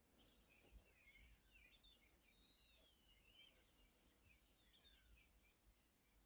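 Near silence, with faint birds chirping in the background as a string of quick rising and falling notes.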